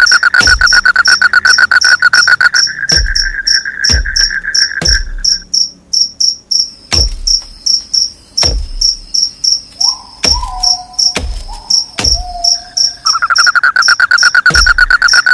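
Night insects, crickets, chirping: a loud, fast-pulsed trill stops about five seconds in and starts again near the end, over a higher chirp repeating about four times a second throughout. Irregular sharp knocks sound every second or so, and a short two-note call comes around the middle.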